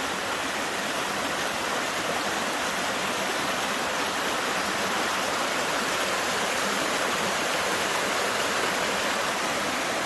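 Small waterfall: water rushing in a steady stream over rock ledges.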